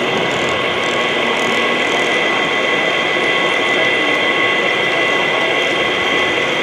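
G scale model diesel locomotive rolling past on its track: a steady mechanical running noise with a constant high whine.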